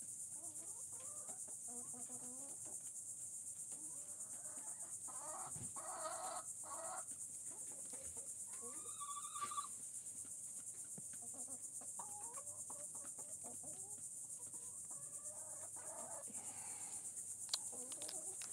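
Chickens clucking on and off, with a steady high-pitched insect drone behind.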